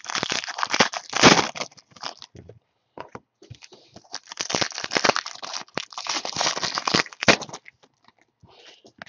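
Foil trading-card pack wrappers crinkling and tearing as packs are handled and opened, in two stretches of crackly rustling with a short pause between, going quieter near the end.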